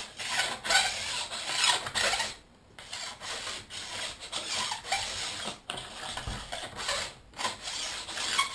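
A hand-held ski edge tuner, set to 88°, drawn again and again along the steel side edge of a K2 Hellbent ski, making repeated rasping strokes as it sharpens the edge.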